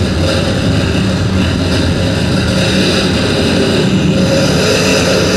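Live harsh noise music from electronic gear: a loud, steady wall of noise over a low drone, with no let-up.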